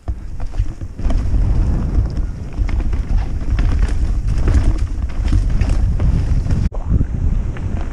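Wind buffeting a helmet-mounted camera's microphone on a fast downhill ride, with rattling and knocks from the bike running over rough ground. It gets louder about a second in.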